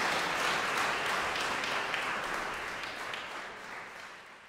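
Concert-hall audience applauding, a dense patter of many hands clapping that gradually fades away.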